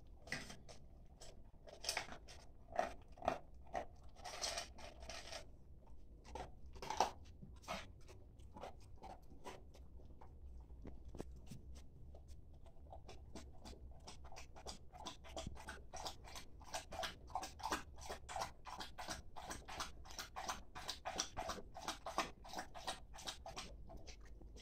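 Staffordshire bull terrier eating dry dog food from a stainless steel bowl: irregular crunching and small clicks of kibble being bitten. The crunching comes faster and more steadily in the second half.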